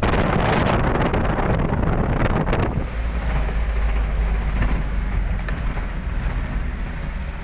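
Wind buffeting the microphone over a deep rumble; the buffeting eases after about three seconds, leaving a steadier low rumble.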